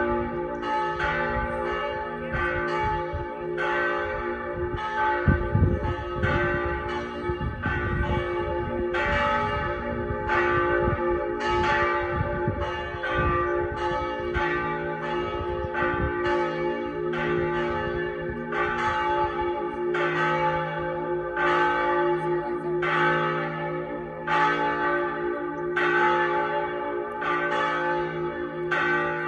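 Pershore Abbey's church bells ringing, only a reduced set of the ring in use, struck one after another at about two strokes a second, each note ringing on into the next. A low rumble comes in about five seconds in and lasts a few seconds.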